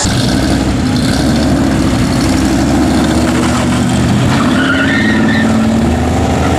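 Classic GMC pickup truck's engine accelerating hard as it pulls away, rising in pitch, with its tyres briefly skidding and squealing on the pavement.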